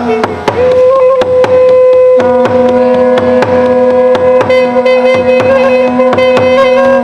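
Performance music: a held, slightly wavering melody line over a low drone, with steady drum strikes about three times a second. The drone drops out from just after the start until about two seconds in.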